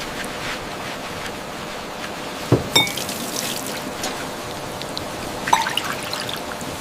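Water splashing and dripping in a steady hiss, with sharp knocks twice about two and a half seconds in and once more near the end.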